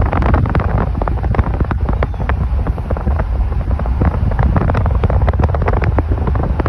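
Heavy wind buffeting on a phone's microphone held out of a moving car's open window, a loud low rumble full of irregular crackles, with road noise underneath.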